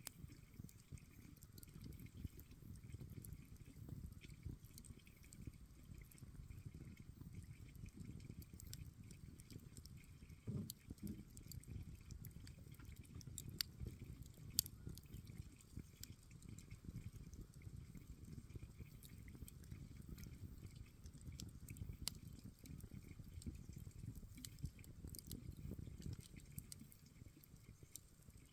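Campfire crackling faintly: scattered small pops and snaps over a low, steady rumble, with two sharper pops about halfway through.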